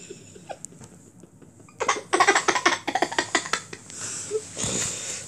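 A child's stifled giggling: quick breathy pulses of laughter, about five a second, starting about two seconds in, with another short burst near the end.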